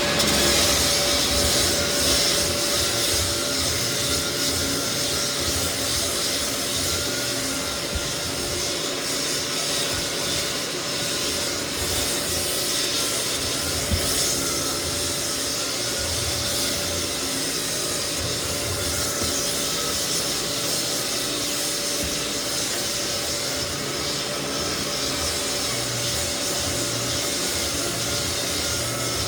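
Lagler Flip belt floor sander running steadily with its dust extraction, its abrasive belt grinding across cupped white oak flooring to level it. A constant motor hum sits under the rasping of the sanding.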